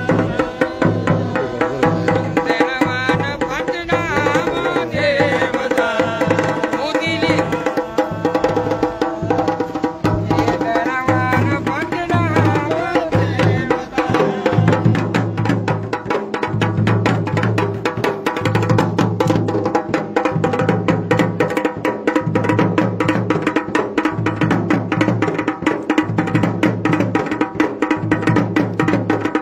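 Dhol and damau drums playing a fast, steady rhythm over a sustained droning melody, in Pahadi folk music. A wavering vocal-like melody line rises over the drumming a few seconds in and again around eleven seconds.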